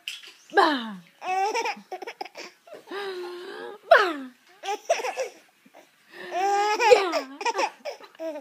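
Baby laughing in a run of short, high-pitched bursts with brief pauses between, several of them sliding up and down in pitch.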